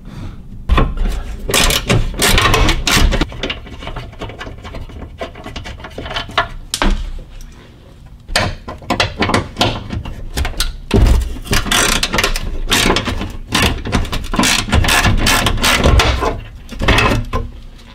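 Ratchet wrench clicking in repeated bursts as bolts are backed out.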